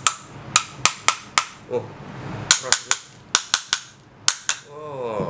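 Small hammer knocking on the metal motor housing of a 12 V DC submersible water pump to drive a part loose for removal: about fourteen sharp, ringing metallic knocks in uneven quick clusters.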